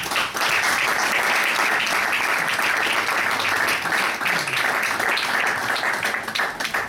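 Audience applauding, a dense, even clapping that thins out near the end.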